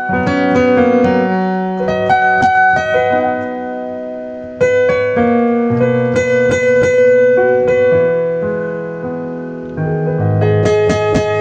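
Piano with the Yamaha CFX concert grand sound playing a slow ballad: a melody over sustained chords, with new, louder chords struck about four and a half seconds in and again near ten seconds, each fading before the next.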